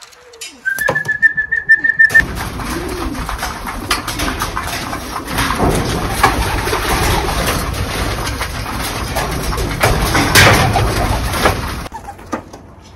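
Pigeons cooing among loud rustling and clicking that lasts about ten seconds, then stops suddenly. It is preceded by a steady high tone lasting about a second.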